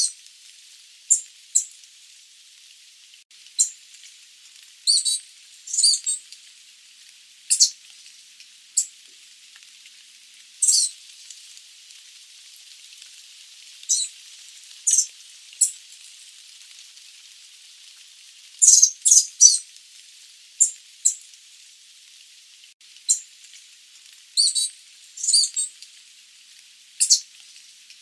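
Sooty babbler (Stachyris herberti) giving short, high-pitched calls, some single and some in quick runs of two to four, at irregular intervals over a faint steady hiss.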